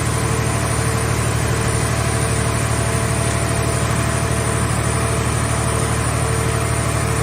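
Engine of a scrap-car baler running steadily at idle, with a fast, even throb.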